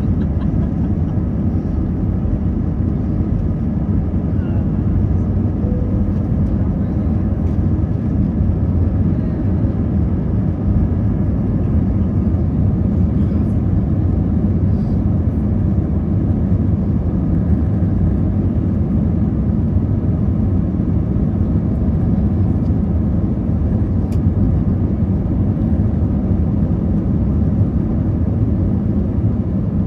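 Airbus A321 cabin noise in flight: the steady low rumble of the jet engines and airflow, unchanging throughout.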